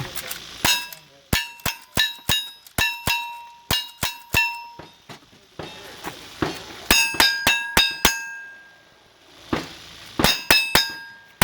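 Strings of quick gunshots at a cowboy action shooting match, each followed by the ringing clang of a steel target being hit. About ten shots come in the first four and a half seconds, a string of five follows near the middle, and another string starts near the end.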